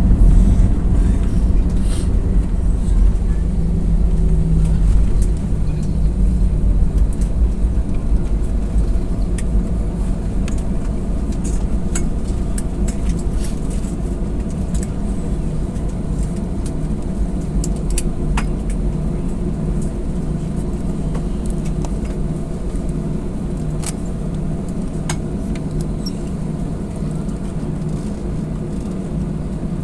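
Airliner cabin noise on the landing roll: a steady low rumble of engines and runway that slowly eases as the aircraft slows, with a few small clicks and rattles.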